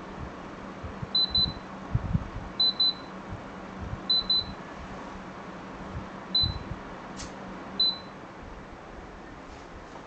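Mitsubishi Kirigamine MSH-2232 room air conditioner's indoor unit beeping as it receives remote-control commands: three quick double beeps about a second and a half apart, then two single beeps, over the steady running of its fan.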